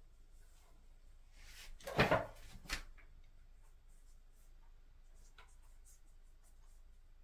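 A painter's brush and paint dish being handled: a short scraping rub that builds and peaks about two seconds in, then a sharp click, followed by faint taps.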